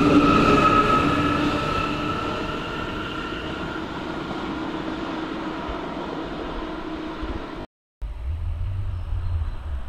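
Electric S-Bahn multiple unit pulling away, its traction motors whining in a few steady tones over the rumble of the wheels, fading as the train leaves. Near the end the sound cuts out for a moment, and a low rumble follows.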